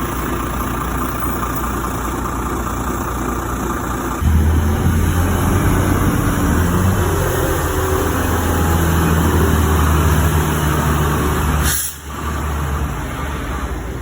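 Fire truck engine running, getting louder with a deeper hum about four seconds in. A short burst of air-brake hiss comes near the end.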